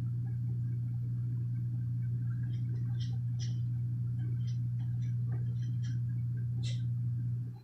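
A steady low hum that cuts off abruptly near the end, with scattered light clicks over the middle and later part.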